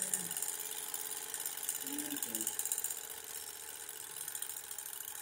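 Bowman M122 twin-cylinder model steam engine running steadily on compressed air, with a fast, even ticking clatter from its cylinders and running gear.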